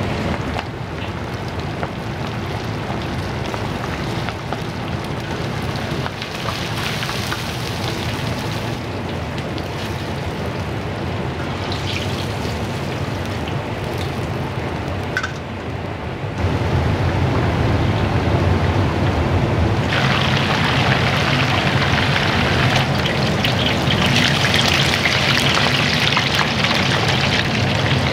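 Restaurant kitchen noise: a steady hiss like sizzling or running water, growing louder about halfway through and hissier again a few seconds later.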